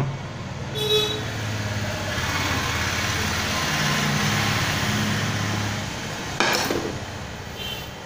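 A motor vehicle running by, its engine hum and road noise swelling and then fading over a few seconds, with a single sharp knock near the end.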